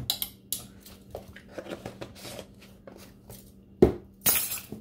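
Light clinks and taps of a glass spice jar and metal measuring spoons being handled on a countertop, with a sharper knock about four seconds in and a short rushing scrape just after it.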